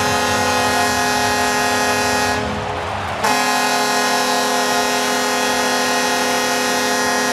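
Ice hockey arena goal horn blowing in two long, steady blasts, with a short break about two and a half seconds in. It signals that a goal has been scored.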